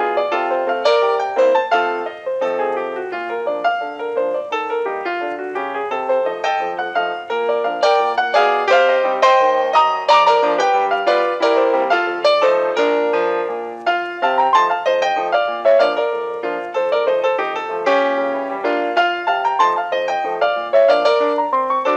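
Background piano music: a lively piano piece with many quick notes.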